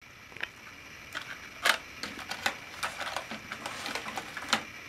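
Irregular clicks and knocks of a small plastic RC coaxial helicopter being handled and set down on a wooden table, the sharpest about one and a half seconds in.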